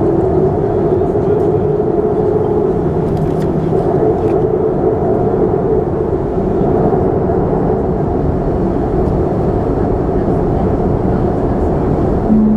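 Boeing 737-300's CFM56 jet engines running steadily, heard from inside the passenger cabin as a loud, even roar with a low hum. A short low tone sounds near the end.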